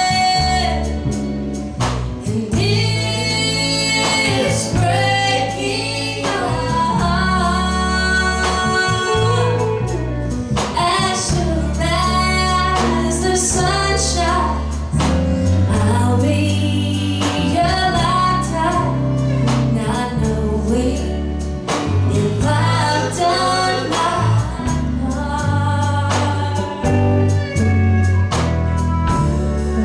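Woman singing lead with a live country band: acoustic guitar strumming, bass and drums keeping a steady beat.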